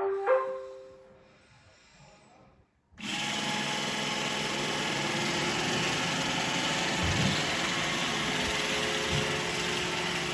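Roomba e5 robot vacuum starting up: a short chime of tones, then about three seconds in its vacuum motor and brushes start and run steadily. It is running normally with a new cleaning head in place of the one whose broken motor caused Error 11.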